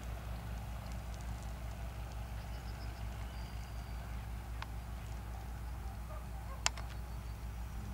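A vehicle engine idling steadily with a low hum, broken by two sharp clicks, one just past the middle and a louder one near the end.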